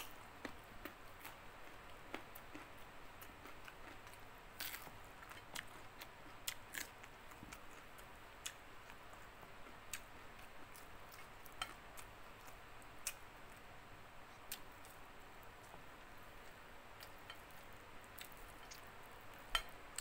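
Close-up eating sounds: chewing raw carrot, faint, with scattered sharp crunches and mouth clicks about every second, the loudest as the carrot is bitten at the start and another near the end.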